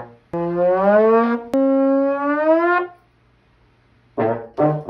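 Trombone playing two long held notes as a comic sound effect. Each note slides slightly upward, the second higher than the first, with a short click between them.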